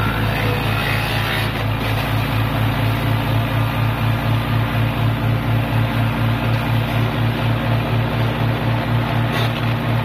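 Engine-driven mobile wood crusher running steadily, with a regular low throb about four times a second.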